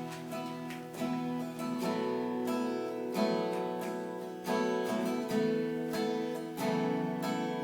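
Acoustic guitar playing the instrumental intro of a song, chords picked and strummed in a steady rhythm.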